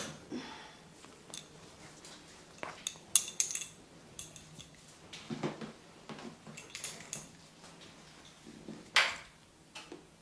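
Hands-on head and body massage: scattered sharp clicks and cracks with softer rubbing between them, the loudest about three seconds in and again near nine seconds.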